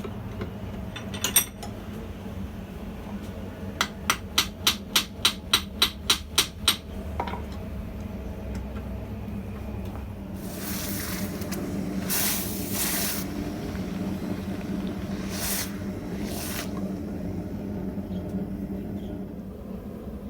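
A hammer striking steel: a couple of knocks, then a quick run of about a dozen ringing blows, about four a second. A few seconds later come several spells of hissing.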